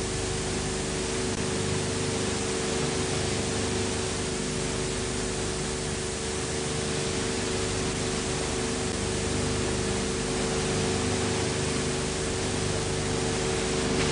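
Steady hiss with a constant low hum, the background noise of an old film's sound-track transfer, with no other sound.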